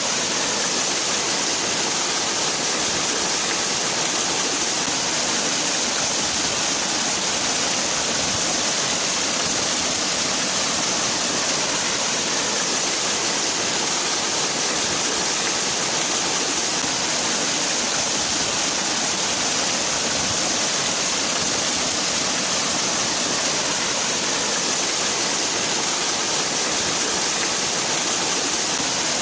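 Waterfall: water falling and rushing in a steady, unbroken hiss, brightest in the upper range.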